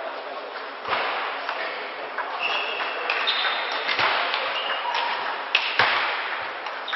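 Table tennis rally: the celluloid ball clicking sharply off the bats and the table in a quick back-and-forth, a hit every half second to a second, over steady background noise.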